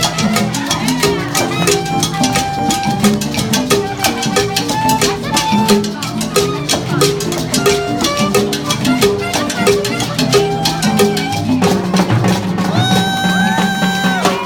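A jazz band playing a Latin-rhythm passage, with steady rattle and drum percussion under a bass line and melody. Near the end a long held note with vibrato comes in.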